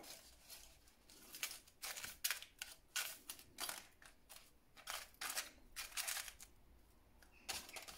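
Toothbrush bristles scrubbing silver watch case parts in a white cleaning powder: short, scratchy strokes, two or three a second, in uneven runs with a couple of brief pauses.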